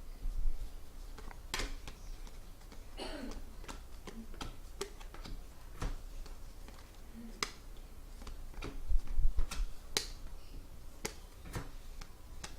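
Trading cards being handled and flipped through, making scattered irregular clicks and light taps, with a couple of louder knocks about nine to ten seconds in.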